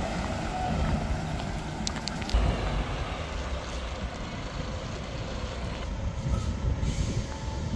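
Road traffic: cars, a truck and a minibus passing, with a steady low rumble of engines and tyres on the road and a louder surge about two seconds in.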